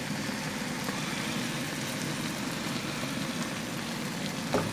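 Liver curry (kaleji masala) simmering in a steel pan on a gas stove, a steady bubbling sizzle. A short knock sounds near the end.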